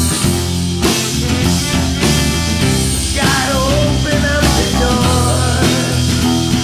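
Rock band playing an instrumental passage with drums, bass and guitar. A wavering lead melody comes in about three seconds in.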